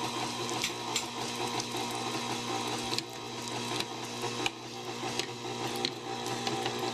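KitchenAid stand mixer running its meat-grinder attachment, a steady motor hum with a whirring chatter as it grinds diced chicken and shrimp, broken by occasional sharp clicks.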